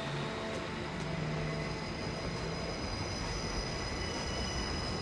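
Steady outdoor city rumble with several high, held squealing tones over it, like rail wheels squealing. Low lingering music notes fade out in the first second or two.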